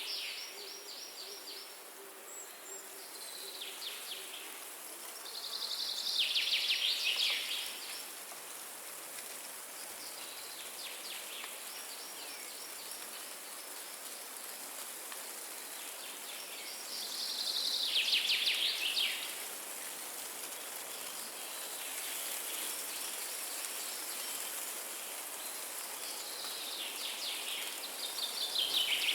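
A songbird sings a short, rapid trilled phrase several times, roughly every ten seconds, some phrases fainter than others. Under it runs the steady hiss of wind in a forest.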